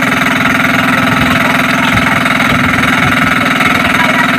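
A small engine running steadily at idle, with a fast, even pulse.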